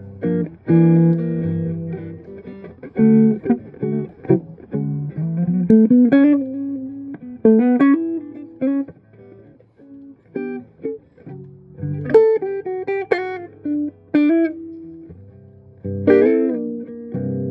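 Electric guitar played clean through a Mesa/Boogie Nomad 55 tube combo amp: chords and single-note phrases, some notes sliding up in pitch, with short pauses between phrases.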